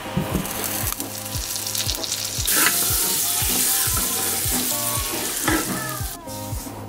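Butter melting and foaming in a nonstick pan, sizzling as it is stirred with a wooden spoon. The sizzle grows louder about two and a half seconds in and falls away shortly before the end.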